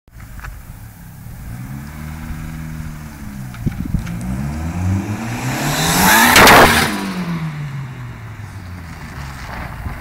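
Turbocharged K-series four-cylinder engine in a Ford Sierra accelerating hard past. The engine note climbs as it revs, peaks loudest about six and a half seconds in as the car goes by, then drops in pitch and fades as it drives away.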